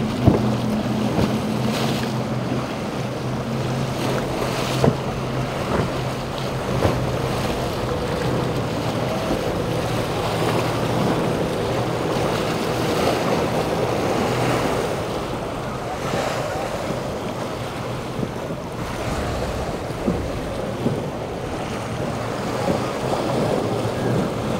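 Waves and surf washing at a rough ocean inlet, with wind buffeting the microphone and a boat's engines running faintly underneath.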